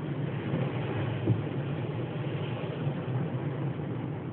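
Car engine idling with a steady low hum, heard from inside the closed cabin under a constant rushing hiss, with one brief thump about a second in.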